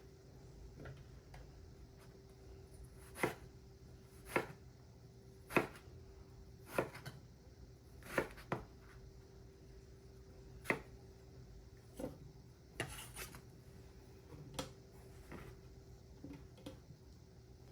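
Kitchen knife cutting vegetables on a cutting board: a slow series of sharp knocks, roughly one a second, with a few quicker pairs.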